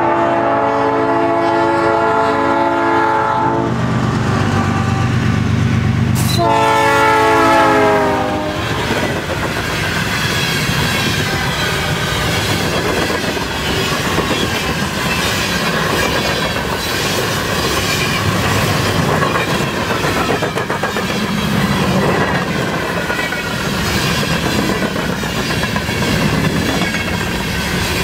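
Freight locomotive's air horn sounds a long chord, then a second, shorter blast whose pitch drops as the locomotive passes, over the heavy rumble of its diesel engine. After it, a long train of empty covered hopper cars rolls by steadily, wheels clicking over the rail joints.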